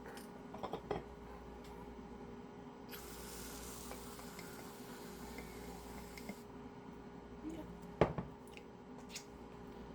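Butterbeer cold foam topping being dispensed onto iced coffee: a few small clicks, then about three seconds of steady hissing, then a sharp knock about eight seconds in as a container is set down.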